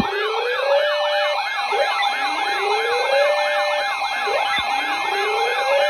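Electronic siren alert sound: a fast yelping siren sweeping about three times a second, layered with a slower wail that rises every two and a half seconds, over a steady tone. It signals an emergency weather alert.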